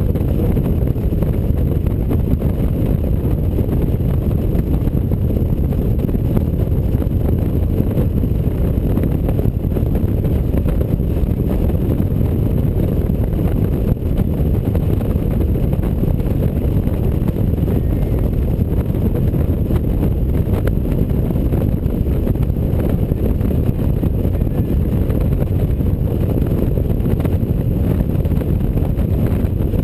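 Steady low rumble of wind buffeting the microphone, with road and engine noise from a touring motorcycle cruising at highway speed.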